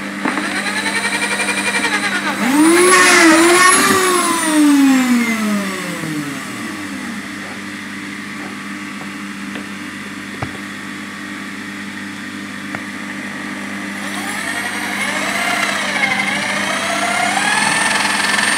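Electric drill boring and countersinking a hole in a cast lead sinker. The motor speeds up and slows with the trigger in two spells, a long one over the first six seconds or so and another near the end, with a quieter gap between.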